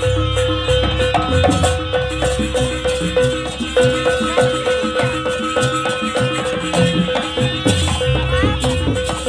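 Jaranan gamelan ensemble playing fast, dense music: rattling percussion and drum strokes in a quick even pulse under a busy metallophone-like melody, over a steady held note.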